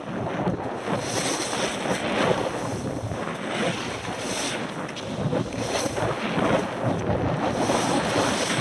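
Skis scraping and carving over snow under wind buffeting the camera's microphone. The hiss of the snow surges about every second or so as the skier turns.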